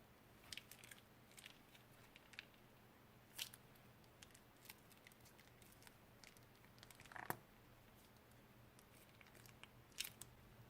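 Faint, scattered crinkles and clicks from handling slime-making materials, with a few louder crackles about three and a half, seven and ten seconds in.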